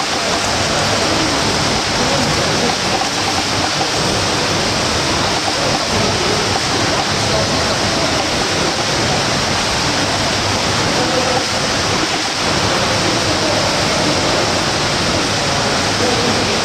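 Steady rushing and splashing water from swimmers doing front crawl in a pool.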